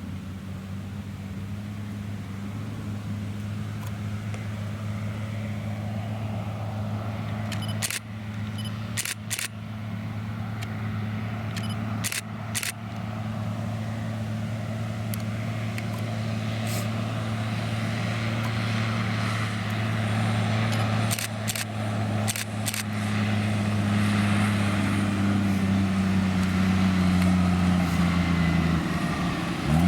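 Claas Lexion 580 Terra-Trac combine harvester running steadily while combining, a deep, even engine hum that grows gradually louder. A few sharp clicks come a third of the way in and again a little past the middle.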